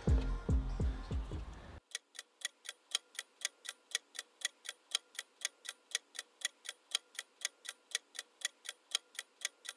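Guitar background music fading out, then a clock ticking evenly, about three ticks a second, with dead silence between the ticks: an edited-in ticking-clock sound effect.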